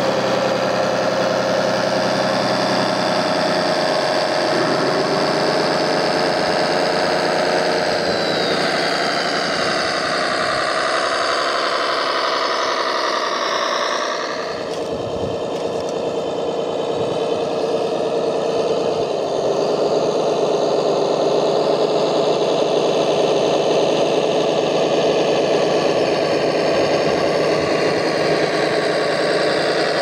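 Radio-controlled model trucks driving over gravel with a steady, engine-like mechanical running sound whose pitch slides up and down. The sound changes abruptly about halfway through.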